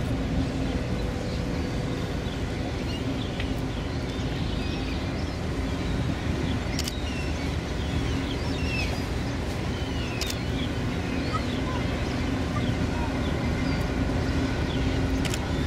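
Steady low rumble and engine hum from a loaded container ship passing on the river. Small birds chirp over it throughout, with a few sharp clicks.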